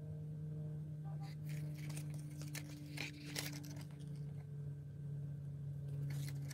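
Handling noise from a cardboard packaging card and leather pouch being turned over in the hands: irregular crinkling and rustling clicks in several short clusters, over a steady low hum.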